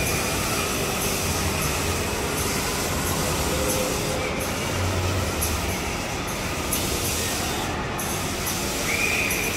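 Kiddie-ride train of bee-shaped cars running along its track, a steady rumbling, rattling noise heard from on board, with a faint high whine near the end.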